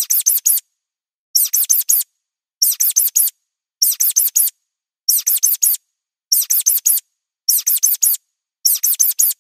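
Looped mouse-squeak sound effect: bursts of four quick, high-pitched, downward-sweeping squeaks, repeating evenly about every 1.2 seconds with dead silence between.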